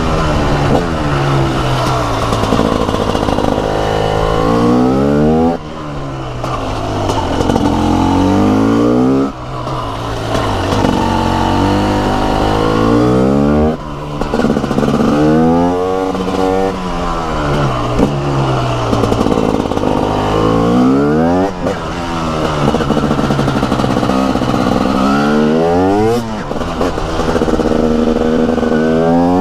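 TM SMR 300 supermoto's 300 cc single-cylinder two-stroke engine under hard riding. It revs up and falls back over and over as the rider accelerates and then shuts off or shifts, with several brief drops in loudness where the throttle closes.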